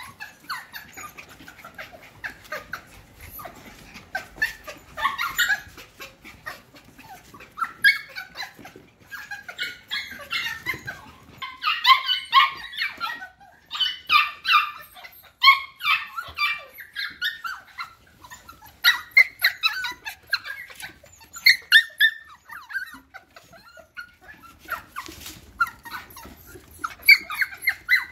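Cockapoo puppies (cocker spaniel × miniature poodle) make many short, high-pitched calls as they play-fight, busiest around the middle.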